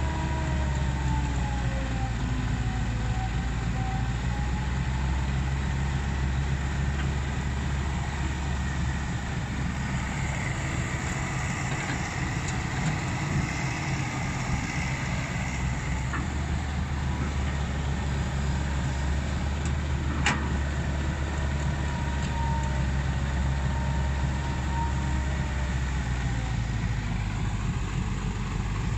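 Komatsu crawler excavator's diesel engine running steadily while digging, with a whining tone that dips and rises in pitch. There is a single sharp click about two-thirds of the way through.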